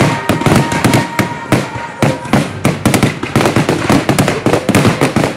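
Aerial firework shells bursting in a finale barrage: many sharp bangs and crackles in quick, irregular succession, several a second, overlapping throughout.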